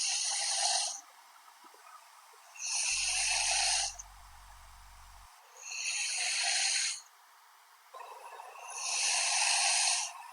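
A woman snoring in her sleep: four breathy snores about three seconds apart, each lasting about a second.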